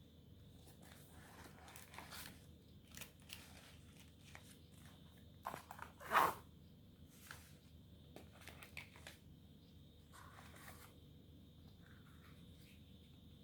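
Stiff paper and card crinkling and rustling in short irregular bursts as a handmade paper explosion box is handled and opened, with the loudest crinkle about six seconds in.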